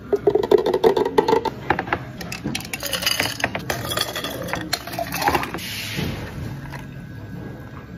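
Glass clinks as a thick smoothie is poured into a glass jar. Ice cubes tipped from a metal scoop then clatter into glass jars. Near the end, milk tea is poured over the ice.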